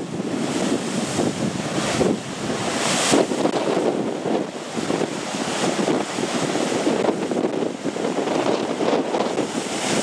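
Heavy sea surf crashing and surging against rocks, a continuous rush of breaking water that swells and eases with each wave. Wind buffets the microphone throughout.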